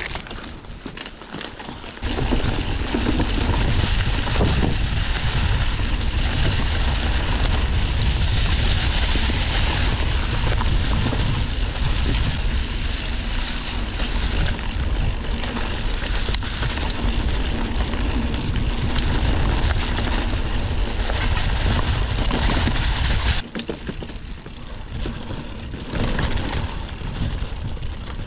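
Wind buffeting a ride-mounted camera's microphone at speed: a loud, steady rushing roar with heavy low rumble that starts abruptly about two seconds in and drops away abruptly near the end.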